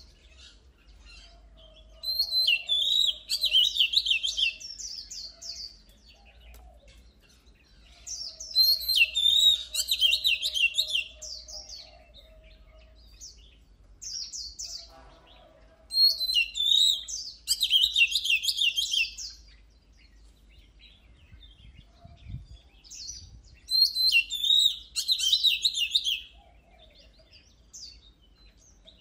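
Oriental magpie-robin singing in four loud bouts of rapid, varied whistled notes. Each bout lasts about three seconds, and they come roughly every seven to eight seconds.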